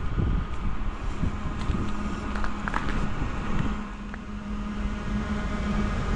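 Footsteps crunching through fresh snow, with a steady low hum under them.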